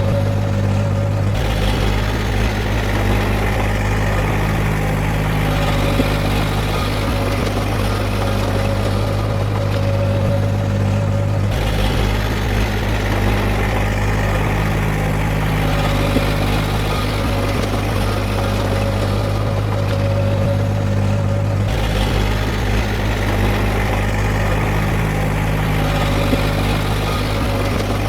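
Heavy diesel engine of earthmoving equipment running steadily, its tone shifting roughly every ten seconds.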